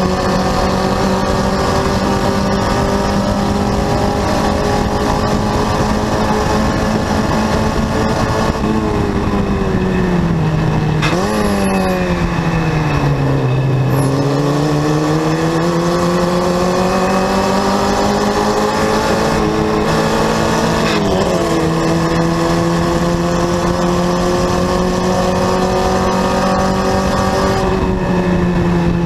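Formula Vee race car's Volkswagen air-cooled flat-four engine at full race revs with wind rush, heard from the cockpit. About nine seconds in the revs fall as the car brakes for a corner, with a quick rev blip on a downshift; the engine then pulls back up and changes up a gear about three quarters of the way through, dropping the revs sharply before climbing again.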